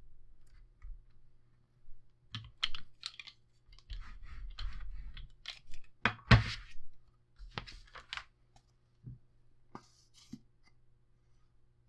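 Paper and chipboard pieces being handled and moved on a craft table: a run of short rustles, scrapes and clicks, with one sharp knock about six seconds in.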